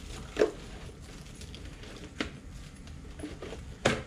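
Clear plastic wrap on a radio-controlled truck's body crinkling as it is pulled off, in three short sharp crackles, the loudest near the end.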